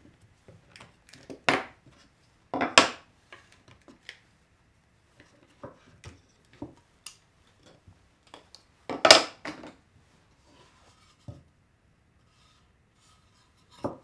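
Plywood panels, a wooden corner jig and spring clamps being handled on a wooden workbench: scattered wooden knocks and small clicks as pieces are picked up and set down. The loudest knocks come nearly three seconds in and about nine seconds in.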